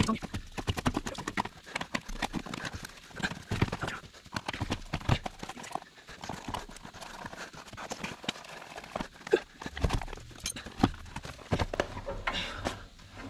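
Wrench working the nut on a skid steer's battery hold-down bracket: a rapid, irregular run of small metal clicks and knocks as the nut is loosened.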